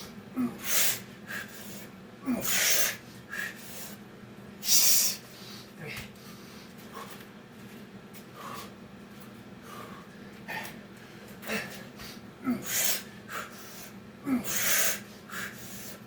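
A man breathing hard from exertion, with loud, sharp exhales coming every second or two and a quieter stretch in the middle, over a faint steady low hum.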